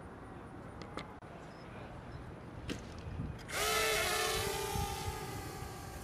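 A small drone's electric motor and propeller start suddenly about three and a half seconds in with a high, whining drill-like sound, hold steady, then fade. A few sharp clicks come before it.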